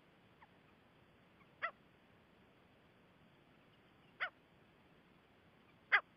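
Gray francolin calling: three short, sharp single notes a couple of seconds apart, the last the loudest, with a fainter note just before the first, over a low steady hiss.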